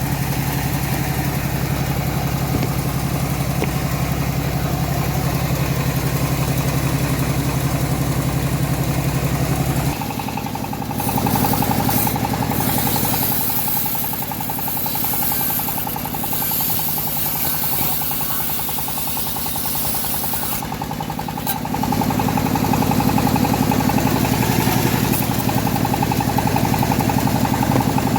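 Engine-driven homemade bandsaw running steadily. About ten seconds in the engine note changes and a high hiss joins for some twelve seconds as the blade rips through teak, then the steady running returns.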